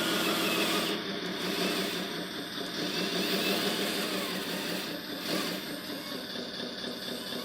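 Motor of an RC construction vehicle running steadily: an even hum with a hiss above it.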